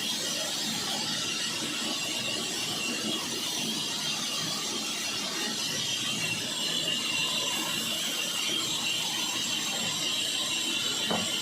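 Sawmill wheel saw running steadily, with a constant high-pitched whine over a dense mechanical noise, and a brief knock near the end.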